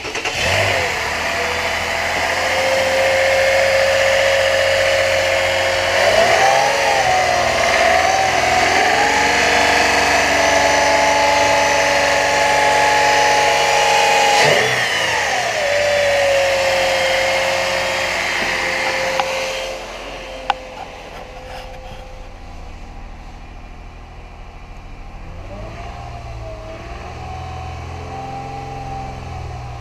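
2015 Toyota 4Runner's 4.0-litre V6 engine running, revved up and let back down to idle several times: about six seconds in, near fifteen seconds and twice near the end. A high hiss over the engine stops about twenty seconds in, and the engine is quieter from then on.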